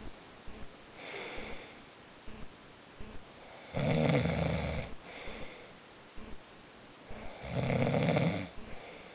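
A sleeper snoring loudly: two long snores about three and a half seconds apart, each lasting about a second, with a fainter breath before the first.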